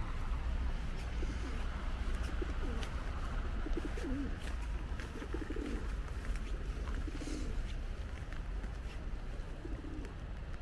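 Raindrops ticking on an umbrella over a steady low rumble, while a pigeon coos several times in short low phrases.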